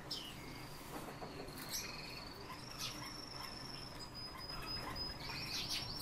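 Caged songbirds singing: a long, high, warbling trill held at an even pitch, breaking into a faster pulsed trill near the end, with a few sharp clicks.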